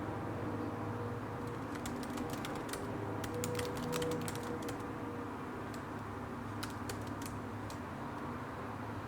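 Typing on a computer keyboard: a quick run of keystrokes from about two to five seconds in, then a few more around seven seconds, over a steady background hum.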